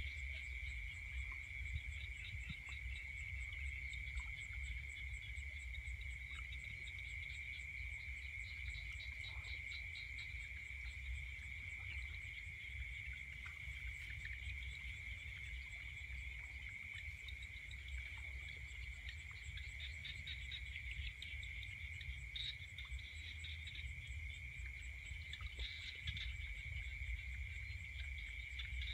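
Night insect chorus: a steady high-pitched trill with pulsing chirps above it, over a low rumble.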